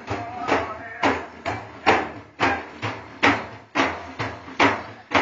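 Loud percussive beats in a steady rhythm of about two a second, with men's voices underneath.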